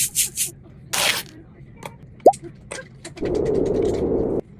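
Sound effects made with the mouth: a few short hisses, a quick rising pop about two seconds in, then a buzzing sound for about a second near the end.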